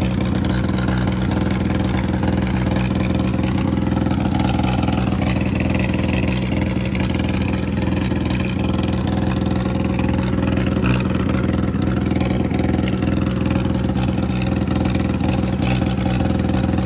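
Mahindra 265 DI tractor's three-cylinder diesel engine running at a steady speed with a fast, even chug.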